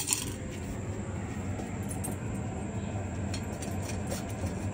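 Golden retriever eating kibble from a stainless steel bowl, with light scattered clicks of food against the metal, over a steady low hum. It opens with a brief clatter as food is dropped into the bowl.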